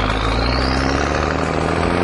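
Loud, dense vehicle engine noise with a high whine rising in pitch through the first second, over background music.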